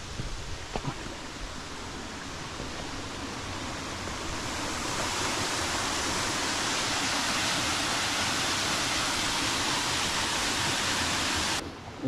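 Waterfall rushing: a steady hiss of falling water that grows louder from about four seconds in, holds steady, and cuts off suddenly just before the end. A few soft knocks in the first second.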